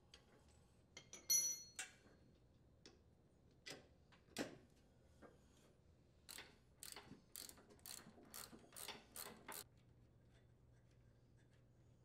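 Faint metal clicks and clinks as the old steering link is worked free of its mounting points. One clink rings briefly about a second and a half in, then a few single knocks, then a quick run of about a dozen clicks that stops near the end.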